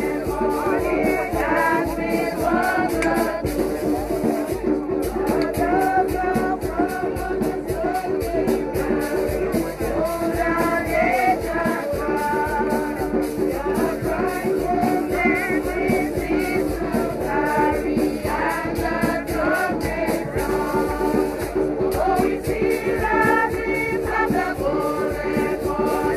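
Music with singing, a group's sung melody over sustained low notes, with a rattle shaking out a steady beat.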